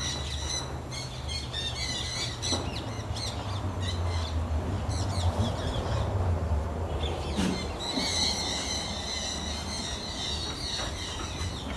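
Small birds chirping and calling over and over, fewer for a couple of seconds in the middle, over a steady low rumble.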